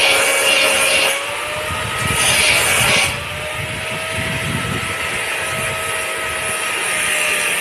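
Power tool motor running with a steady whine during metalwork, with two louder spells of hissing in the first second and between about two and three seconds in.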